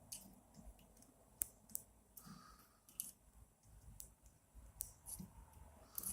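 Faint, scattered clicks and light taps of small screws, nuts and printer parts being handled and fitted by hand.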